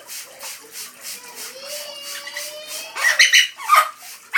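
Amazon parrot giving two loud, high squawks about three seconds in, after a soft rhythmic fluttering of about four beats a second.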